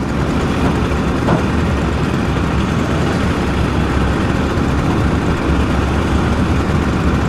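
Steady motor-vehicle engine noise, deep and even, with no single engine standing out.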